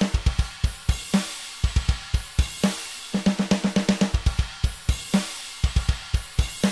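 Programmed EZdrummer drum beat playing back: kick drum, hi-hat and cymbals, with the snare replaced by custom samples through the apTrigga2 trigger plugin. Quick runs of repeated snare hits, about eight a second, fill the gaps between the steadier beats.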